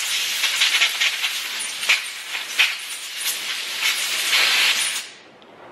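A long, uneven hissing spray blast, surging a few times, blowing out a chainsaw carburetor's parts during cleaning; it cuts off about five seconds in.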